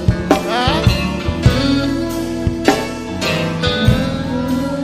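Live gospel band playing: electric guitar over bass guitar and drums, with sharp drum hits standing out.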